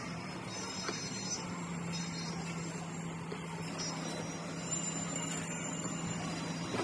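Steady machine hum: a motor running evenly with a constant low drone.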